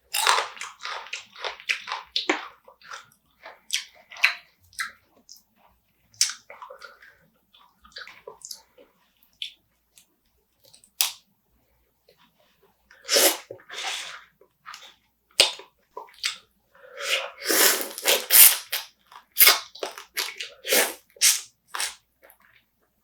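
Close-up eating sounds of spicy marinated raw crab: wet chewing and crunching in irregular bursts, busiest near the start and again over the last third.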